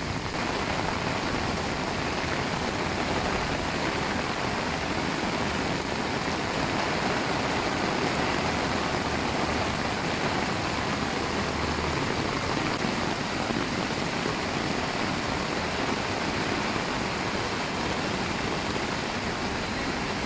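Whitewater rapids of a swollen river rushing steadily, mixed with rain falling.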